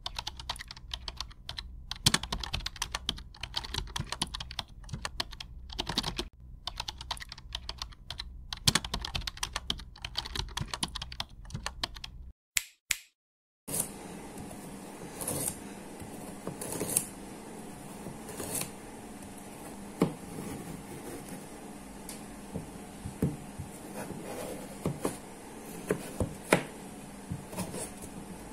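Rapid keyboard typing sound effect for about twelve seconds, then a brief near-silent gap. After that, a kitchen knife slicing carrot and then potato on a plastic cutting board: irregular taps of the blade on the board over a steady low hum.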